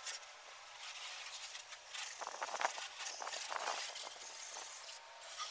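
Water from a garden hose spraying and splashing, a steady hiss with louder irregular splatters in the middle.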